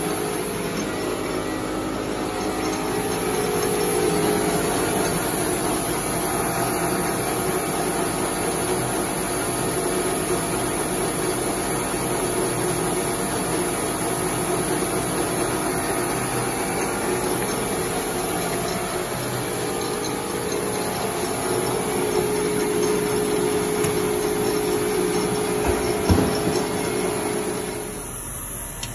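Heidelberg paper-folding machine running, a steady mechanical hum with several held tones over an even whir. One sharp knock comes near the end, and the running sound drops away just before the end.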